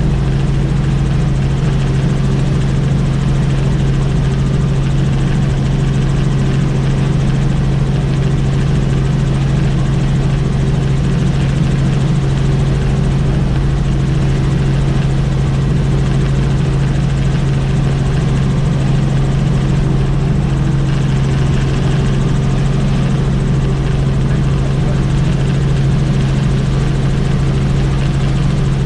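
Helicopter in flight, its rotor and turbine engine running with a steady loud drone and a strong low hum.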